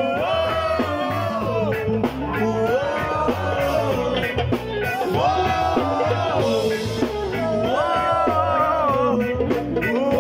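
Live rock band playing loudly, with singing over electric guitar, bass and drums.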